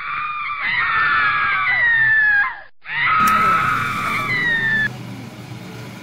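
Young women screaming: two long high screams, each sliding slowly down in pitch, the second cut off abruptly about five seconds in.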